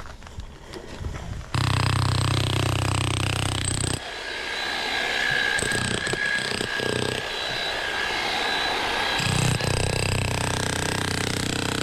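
A power tool running with a steady motor whine and a low hum, starting abruptly about a second and a half in; its sound changes abruptly around four and nine seconds in.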